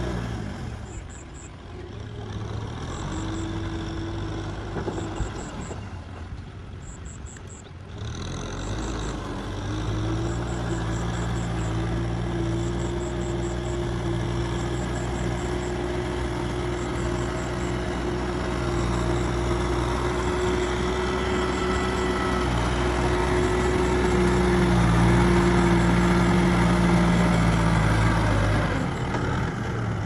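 Kubota tractor's diesel engine running steadily in a muddy rice paddy, fading twice in the first eight seconds, louder for a few seconds near the end and then dropping away.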